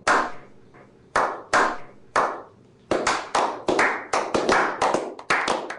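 Hands clapping: a few separate claps at first, then about three seconds in a quicker run of claps, several a second.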